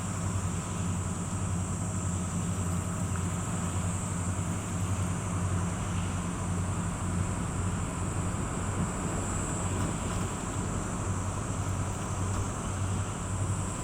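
Small work boat's diesel engine running with a steady low hum as it passes.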